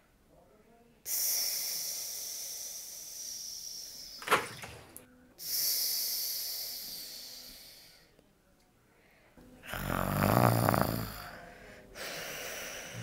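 A woman snoring in her sleep: several long hissing breaths that fade away, and a louder, deeper snore about ten seconds in. A sharp click comes about four seconds in.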